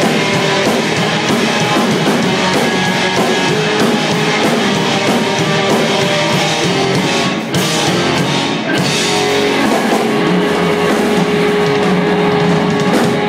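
A rock band playing live: electric guitars and a drum kit, loud and dense, with a brief dip about seven and a half seconds in.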